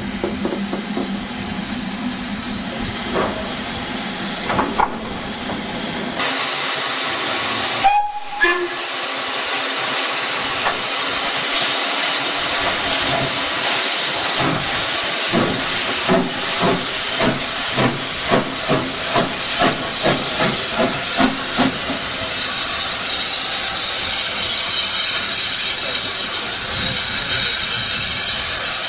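Steam locomotives at close range. First a BR Standard 4MT tank engine's wheels and motion run steadily past. Then SE&CR locomotives hiss steam and give a run of about ten slow, evenly spaced exhaust beats as they move off, the hiss carrying on after.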